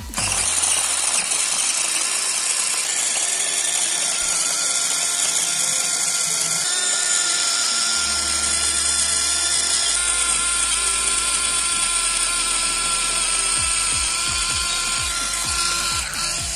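Rechargeable mini electric food chopper running, its small motor spinning the blades through garlic and ginger with a steady high whine. It starts suddenly and cuts off near the end.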